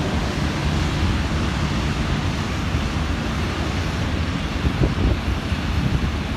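Train of heritage wooden sleeping-car carriages rolling past, a steady low rumble of wheels on rails with a couple of faint knocks about five seconds in, and wind on the microphone.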